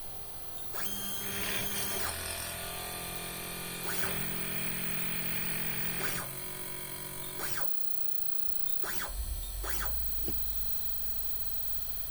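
A small electric drill mounted on a 3D printer, running with a steady whine that starts about a second in. Several sharp clicks or knocks come through over the middle of the stretch.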